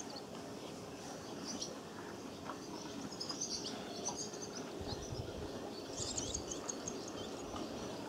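Barn swallows calling at the nest during a feeding visit: clusters of short, high-pitched chirps and twitters, about a second and a half in, again around three to four seconds, and near the end, over steady background noise.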